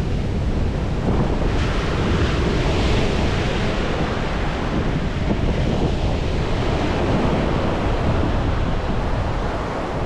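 Ocean surf washing onto the beach, with wind buffeting the microphone and rumbling underneath. A wave breaks more loudly about two seconds in.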